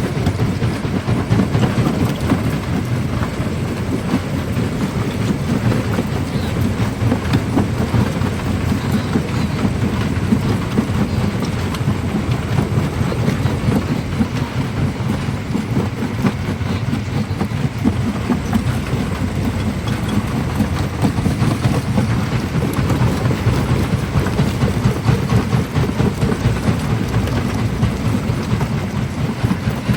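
Primary jaw crusher crushing black stone: a steady, dense rumble full of rapid crunching and cracking of rock, with no let-up.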